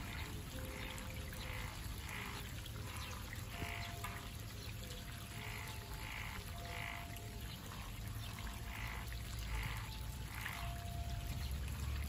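Frogs croaking, a run of short repeated calls, over the steady trickle of a small stream.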